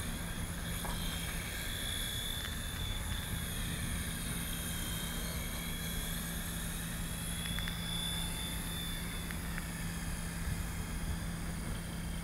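Whine of an MJX F49 4-channel RC helicopter's electric motor and rotor, the pitch wavering up and down as it flies about, over wind noise on the microphone.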